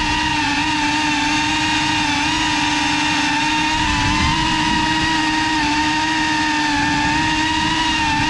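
Electric motors and ducted propellers of a GEPRC CineLog35 cinewhoop FPV quadcopter making a loud, steady whine as it holds an even throttle.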